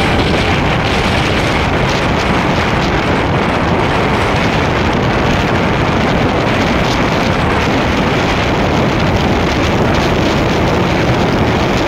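Motorcycle riding at speed: steady wind rush on the microphone mixed with engine and road noise.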